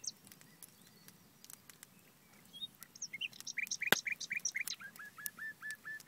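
Common nightingale singing: after a short pause, a phrase of quick repeated whistled notes begins about two and a half seconds in, followed near the end by a run of even, repeated notes. Wood fire crackling with scattered pops, one sharp pop about four seconds in.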